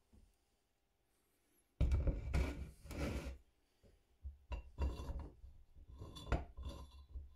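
Rough scraping strokes on a hard surface after nearly two seconds of quiet: two long strokes, then a string of shorter ones with a sharp knock among them.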